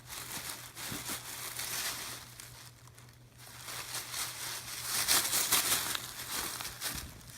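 Paper crinkling and rustling as it is handled, in two spells of irregular scrunching: one near the start and a louder one in the second half.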